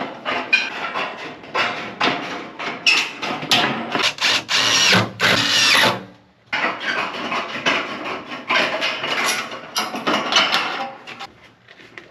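Sheet-metal work: hand tin snips crunching through corrugated metal roofing with the sheet rattling, then a cordless drill driving screws through the metal panels. The sound drops out briefly about halfway through.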